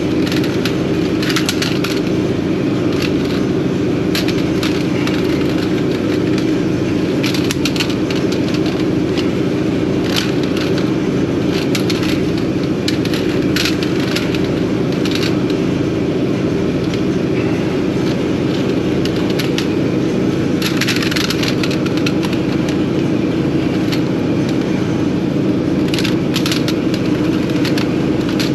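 An engine running steadily at a constant speed, a loud unbroken drone, with scattered short clicks and crackles over it.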